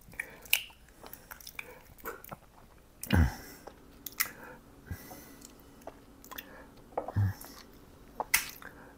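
A hen's egg cracked on a glass bowl and separated by hand: small clicks of shell and soft wet squishing as the white slips through the fingers, with one dull knock about three seconds in.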